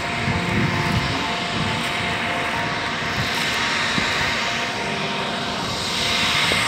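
An engine running steadily, a droning hum with an even rushing noise over it.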